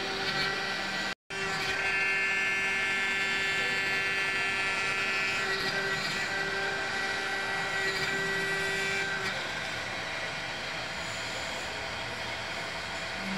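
CNC vertical milling machine cutting a metal block with an end mill: the spindle and cut give a steady whine with a high cutting tone that fades after about nine seconds. The sound drops out for a split second about a second in.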